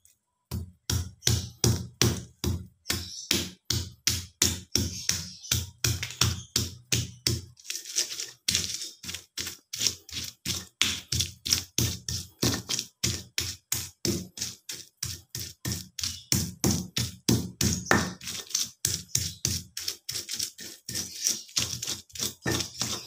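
Stone pestle (ulekan) grinding and crushing shallots, garlic and spices in a stone mortar (cobek), knocking and scraping stone on stone in a steady rhythm of about three strokes a second, with a brief pause a little before halfway. This is the grinding of a spice paste.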